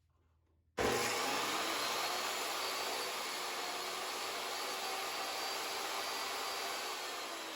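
Table saw switched on about a second in, its motor running steadily at speed.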